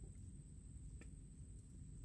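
Near silence: a faint low rumble and a steady high-pitched whine, with two faint clicks about a second apart.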